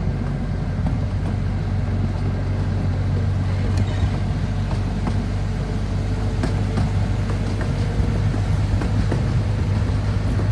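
Miniature park railroad train running steadily, heard from an open passenger car: a continuous low rumble with a few scattered sharp clicks.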